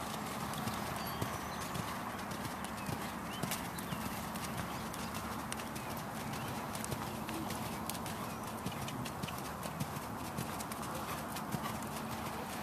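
A horse's hooves beating on soft dirt arena footing as it lopes under a rider, a continuous run of dull hoofbeats.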